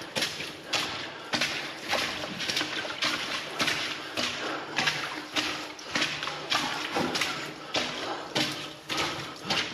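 Footsteps splashing through shallow water on the floor of a narrow concrete drainage tunnel, a quick steady stride of about three steps every two seconds.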